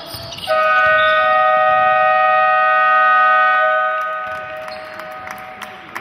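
Basketball game buzzer sounding one long, steady, horn-like blast of several tones at once, starting about half a second in and holding for about three and a half seconds before fading out, marking the end of a period of play.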